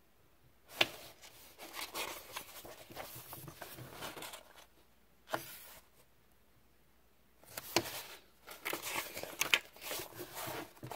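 Glossy paper pages of a printed booklet being handled and turned, rustling and crinkling in irregular bursts, with a sharp page flick about a second in and another about five seconds in.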